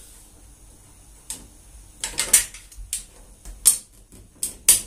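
Steel retractable tape measure being handled while measuring: a series of sharp, irregular clicks and light rattles, several close together about two seconds in and more near the end.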